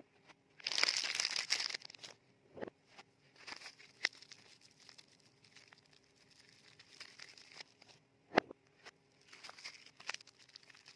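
Frosted paper wrapper crinkling as it is folded around a bar of soap, with a loud burst of crinkling about a second in, scattered small clicks, and one sharp knock about eight seconds in.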